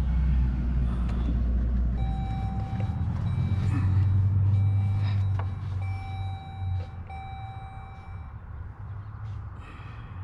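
Chrysler Pacifica minivan powered on: a loud low hum that shifts up in pitch about four seconds in and drops away about seven seconds in. A steady electronic chime tone sounds in several stretches in between.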